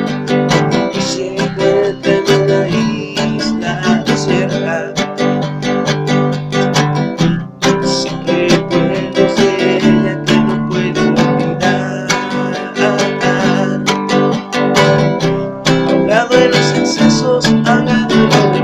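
Acoustic guitar strummed and picked in an instrumental passage of a song, with a fast, busy rhythm of string attacks.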